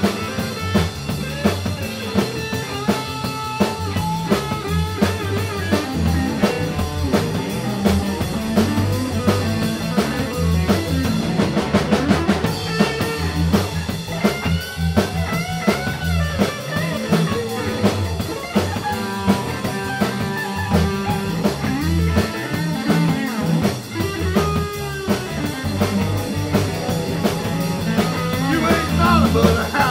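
Live rock-and-roll band playing an instrumental break: electric guitar lead lines over bass guitar and a drum kit keeping a steady beat.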